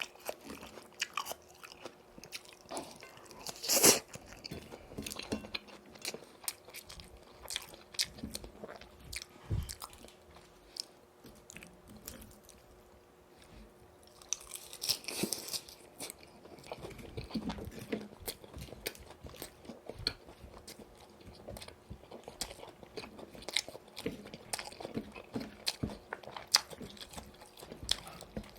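Close-miked chewing of crispy boneless fried chicken in yurinki sauce: a run of small crackling crunches and bites, with a loud crunching bite about four seconds in and another about fifteen seconds in.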